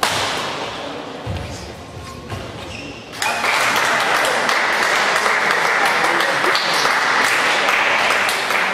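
A badminton racket strikes the shuttlecock with a sharp crack, followed by a few knocks on the court as the rally ends. A little over three seconds in, the spectators in the hall break into loud, steady applause that carries on.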